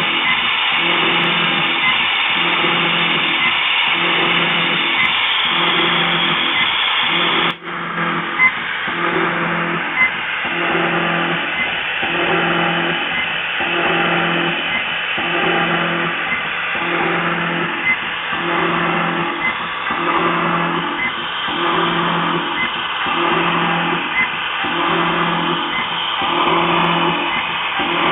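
CNC mill cutting steel on an adaptive toolpath: a steady machining noise with a low tone that swells and drops in a regular cycle of a little over a second as the end mill goes in and out of the cut.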